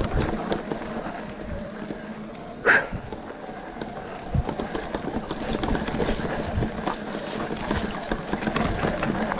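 Mountain bike ridden over a rough forest trail: tyres crunching over stones and the bike rattling, with many small knocks and clicks. There is one brief, louder noise about three seconds in.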